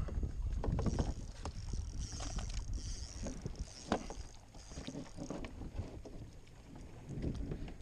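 Wind rumbling on the microphone with scattered knocks and clicks from a kayak and fishing tackle while a hooked fish is being fought.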